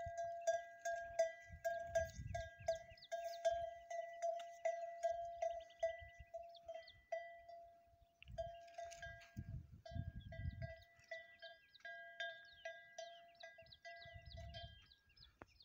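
A metal bell hung on a camel's neck, clanking in quick, uneven strokes as the camel walks and browses, with a short pause about eight seconds in. Low rumbles come and go underneath.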